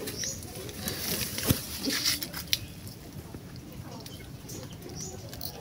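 Hands rustling through wet leaf litter and picking up fallen passion fruits, with scattered small clicks and knocks; the sharpest knock comes about a second and a half in.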